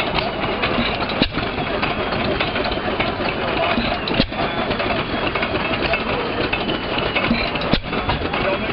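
Hercules 7 HP screen-cooled hit-and-miss gas engine running under load, belted to a stone grist mill. Three sharp cracks stand out above the steady clatter, about three seconds apart.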